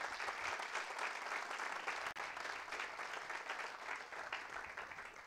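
Audience applauding a lecture at its close, steady, then thinning out near the end.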